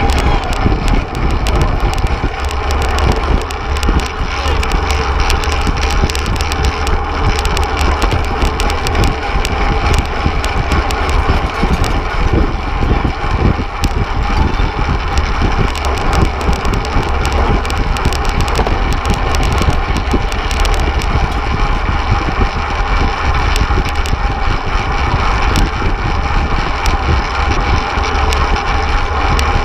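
Wind rushing over the microphone of a camera mounted on a fixed-gear race bike at racing speed: a steady, loud low rumble with a constant hiss over it.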